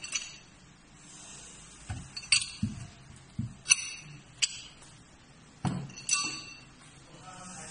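Metal-on-metal clinks and knocks as a hand-held tape-pressing roller is handled among cylindrical steel test weights and rolled over steel test plates: about five sharp, ringing clinks with a few duller knocks between them.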